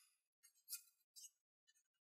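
Faint, brief rustles and crinkles of kraft paper being pressed and folded by hand, a few short ones with near silence between.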